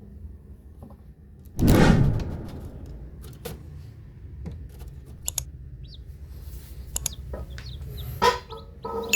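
Chickens clucking, with a louder burst about two seconds in and scattered short clicks and knocks.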